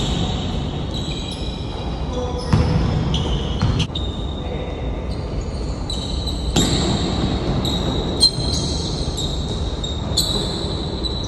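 A basketball bouncing and thudding on a court during play, several separate hits, with short high squeaks.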